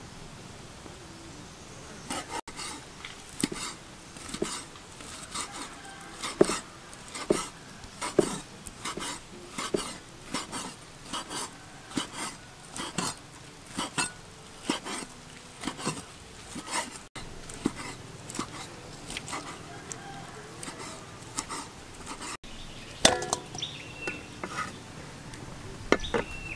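Meat cleaver chopping cooked cow tripe on a wooden chopping board: a steady run of knocks, about one a second, broken by short quieter stretches.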